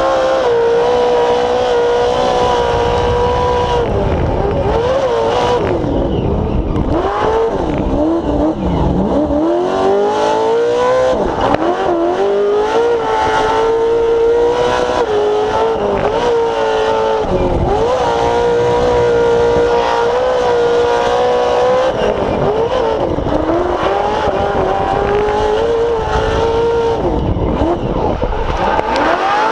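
Short-course off-road race truck's engine heard from inside the cab at high revs through a lap. The pitch drops sharply several times as the driver lifts for corners, then climbs back as he gets on the throttle.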